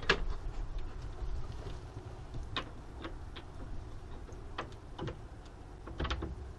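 Scattered light knocks and clicks as the hinged wooden roof of a chicken coop is lifted and handled, over a low steady rumble.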